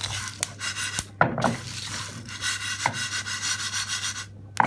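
A spatula stirring whole spices (coriander seeds, cumin, mustard seeds, cinnamon sticks, bay leaves, dried red chillies) as they dry-roast in a pan on a low flame: a dry scraping rustle of seeds over the pan with scattered ticks and clicks, pausing briefly near the end.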